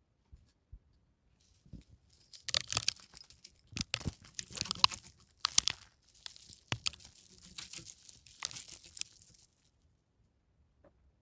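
Irregular crinkling and crunching rustle in dense bursts, starting about two seconds in and stopping about two seconds before the end.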